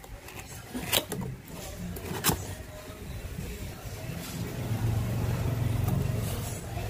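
Cardboard product box being opened by hand, with two sharp snaps about a second apart as the flaps pull free. A low rumble then swells and fades over a couple of seconds near the end.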